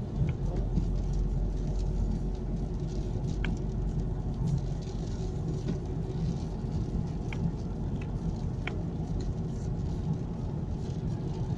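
Steady low rumble of a car driving, engine and tyre noise heard from inside, with a few faint clicks scattered through it.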